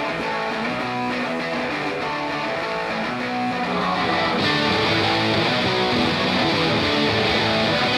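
Electric guitars strumming chords, the intro of a punk-influenced rock song, growing a little louder about halfway through.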